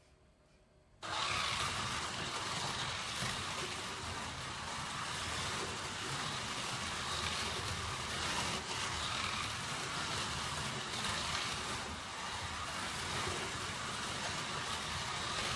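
Several Scalextric Digital slot cars racing around the plastic track: a steady mechanical whirring rattle from the small electric motors, the guide blades and the tyres running in the slots. It starts suddenly about a second in.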